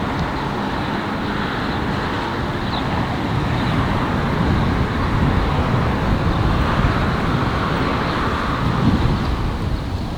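City street ambience: steady road-traffic noise that slowly grows louder.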